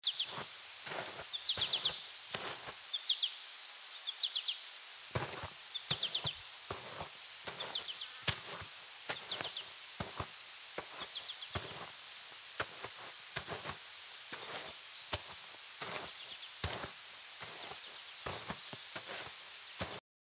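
Forest ambience: a steady high insect drone, short bird chirps in quick runs through the first nine seconds or so, and scattered sharp crackles and snaps throughout.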